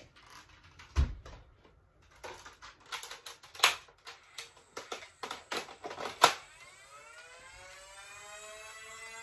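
Plastic toy blasters being handled and loaded: a thump about a second in, then a run of sharp plastic clicks and clacks. Near the end a small electric motor spins up, its whine rising in pitch and levelling off.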